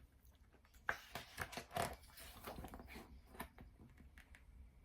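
Pages of a picture book being handled and turned: a run of soft, irregular paper crinkles and clicks, beginning about a second in.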